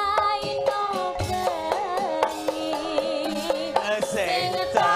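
A woman singing a Javanese song into a microphone, her voice wavering on held notes, over gamelan accompaniment with regular drum strokes.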